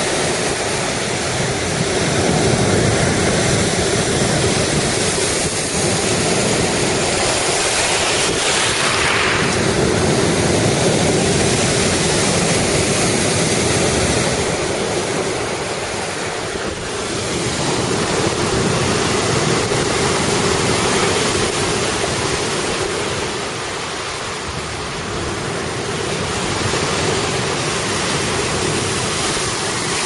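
Heavy storm surf breaking and washing up a beach, a continuous loud rush that swells and eases as the waves come in, with strong wind buffeting the microphone.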